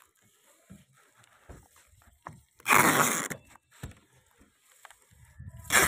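Clear adhesive tape being pulled off the roll with a loud ripping screech lasting just under a second about halfway through, and a second shorter rip at the very end. This is tape sealing the joints in plywood shuttering. A few soft knocks and rubs on the plywood come in between.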